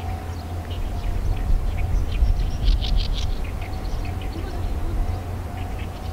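Small birds chirping in short, scattered bursts, busiest midway. Under them run a steady low rumble and a faint steady hum.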